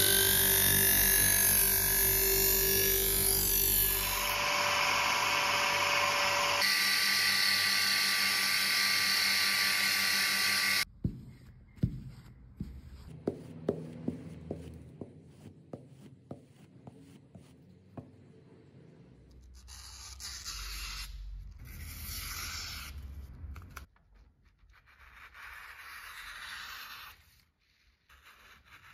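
Background music for the first ten or so seconds, then a kitchen knife blade being stroked along a leather strop on a wooden block, rubbing with light taps, followed by the blade slicing through paper in several longer swishing strokes.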